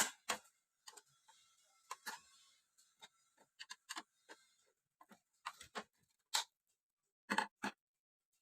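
Irregular light clicks and taps, a few each second with no steady rhythm, ending in a quick group of three.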